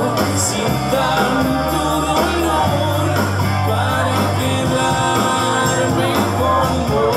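Rock band playing live: a male singer over electric guitar and bass, with a steady beat.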